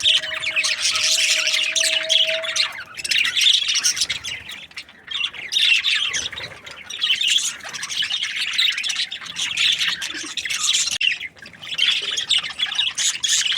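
A flock of budgerigars chattering and squawking continuously, in overlapping bouts of rapid high-pitched chirps.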